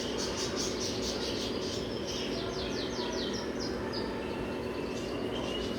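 Small caged pet-store birds chirping: a quick run of short, high chirps about two to three seconds in, and a brief whistled note near the end, over steady store background noise.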